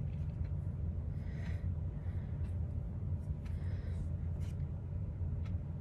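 Quiet room tone with a steady low hum, and a few soft breaths from a woman between words.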